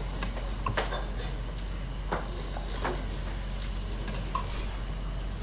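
Metal spoon and chopsticks clinking against a bowl of soup while eating: a few sharp clinks about a second apart, some ringing briefly, over steady restaurant room noise.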